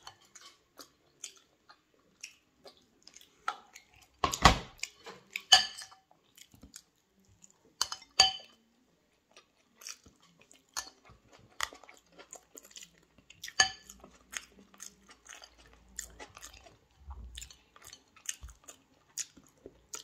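A person eating rice by hand up close: chewing and wet mouth and finger sounds, with a few louder clinks and knocks from the bowl.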